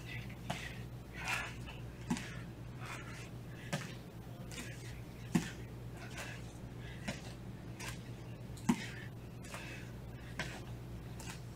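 Soft thuds of bare feet landing on a martial arts training mat during squats with knee raises, about seven of them, evenly spaced roughly a second and a half apart, over a steady low hum.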